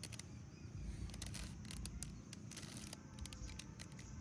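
Rubik's Cube being turned by hand, a run of small, irregular plastic clicks as its faces rotate during the final moves of the solve.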